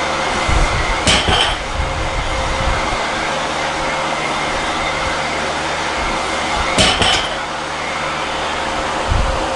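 Loaded barbell with bumper plates set down on the floor twice, each time a thud with a metallic clink from the bar and plates, with softer low knocks between. A steady hiss runs underneath.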